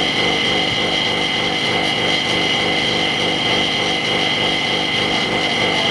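A small electric motor running steadily, with a constant high-pitched whine.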